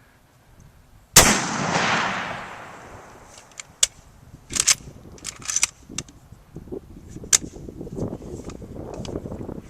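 A single rifle shot, likely from a 7.62x54R rifle. The loud crack about a second in rolls off in an echo over about two seconds, followed by a few sharp clicks and handling noise.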